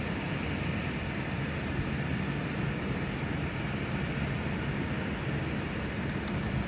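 A steady low motor hum with hiss, unchanging throughout, with a couple of faint short ticks about six seconds in.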